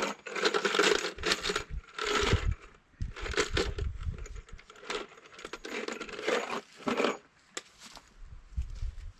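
Irregular clatter, knocks and scraping of lumber pieces being handled, in about half a dozen separate bursts.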